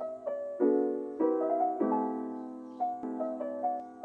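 Background music: soft piano playing gentle chords and a simple melody, each note fading after it is struck.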